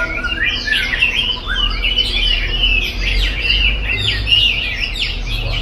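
Chinese hwamei (melodious laughingthrush) singing in full voice: a rapid, unbroken stream of varied whistled and trilled phrases.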